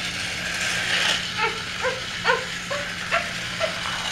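Battery-operated TrackMaster toy train running down a plastic ramp onto floor track, its small motor humming and the wheels rattling on the track. About a second and a half in come six short high yelps, about half a second apart, louder than the train.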